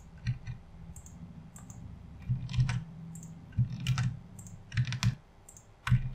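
Computer keyboard keys and mouse button clicking in a dozen or so irregular taps, each with a dull thud, as spreadsheet cells are selected and copied one after another.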